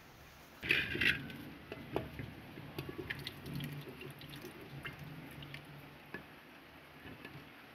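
Wet squelching and dripping as thick spiced vinegar paste is scraped off a plate by hand and dropped into a clay pot, then squeezed and mixed with the fingers. A brief louder scrape comes about a second in.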